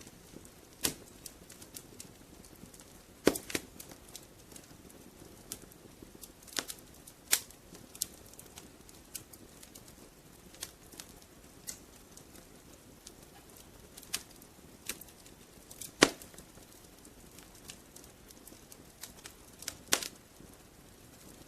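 Wood fire crackling in a fireplace: irregular sharp pops and snaps, a few of them loud, over a faint low hiss of burning.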